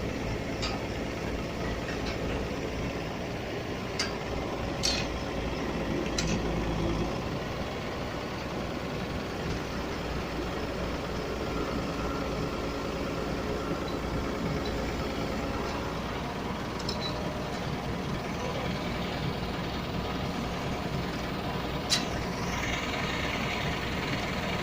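Backhoe engine running steadily, with a few sharp knocks; the loudest knock comes near the end.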